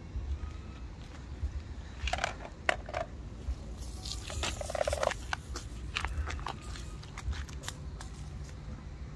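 Kittens biting and chewing a catnip toy: a run of crunching, crackling clicks, densest between about two and five seconds in, over a low steady rumble.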